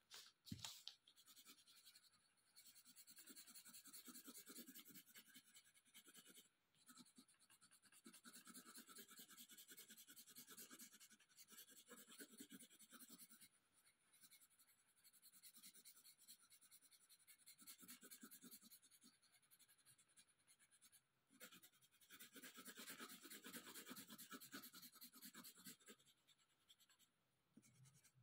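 Faint scratching of a coloured pencil on paper: quick back-and-forth shading strokes in stretches of a few seconds, with brief pauses between them. A single short knock about half a second in.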